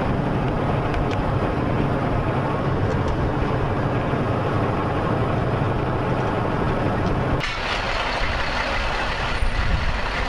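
Humvee's diesel engine and tyres heard from inside the moving vehicle as a steady low rumble. About seven seconds in, the sound changes abruptly to a lighter, hissier vehicle noise with less low rumble.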